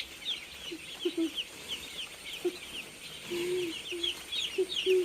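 Chicks peeping in a dense run of short, high, falling cheeps, several a second, with low hen clucks now and then, one drawn out about three and a half seconds in.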